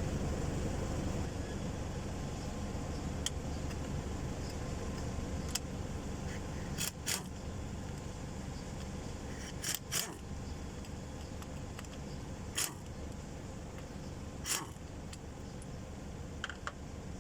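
Steady low mechanical hum with a sharp clink or click now and then, about nine over the stretch, some in quick pairs.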